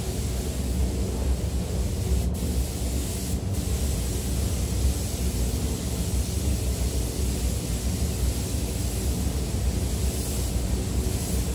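Air spray gun hissing steadily as it sprays glass coating onto car bodywork, with the high hiss cutting out briefly twice in the first few seconds. Underneath runs a steady low rumble.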